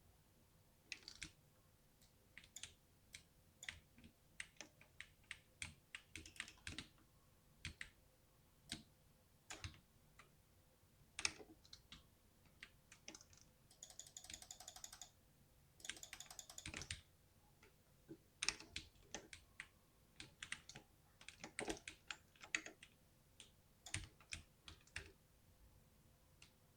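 Keys of an RGB LED computer keyboard being typed: irregular clusters of sharp key clicks with short pauses, and two fast flurries of keystrokes about halfway through.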